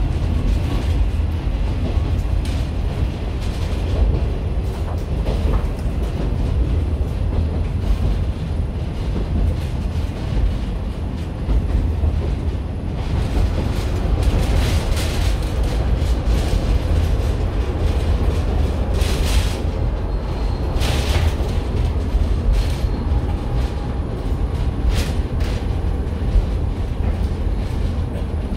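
Train running on the rails, heard from inside the passenger car: a steady low rumble, with several short hissing bursts in the second half as it comes into a station.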